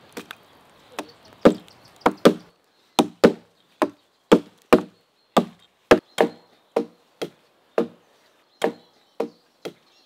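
Small hatchets chopping into a thin fallen tree trunk: sharp, irregular blows about two a second. From about three seconds in, two hatchets strike in turn, so the blows often come in close pairs.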